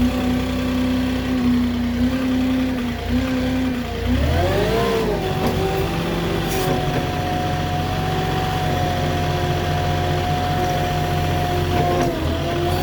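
Moffett truck-mounted forklift's engine running, revving up about four seconds in and then holding at a higher, steady speed.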